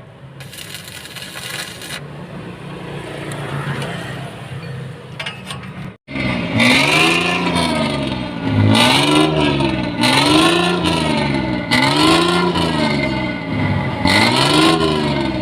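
Bus diesel engine fitted with a 'ngorok' (snoring) aftermarket exhaust, revved over and over about once a second, each rev rising and falling in pitch. Before that, a quieter, steady noise builds for a few seconds and then cuts off.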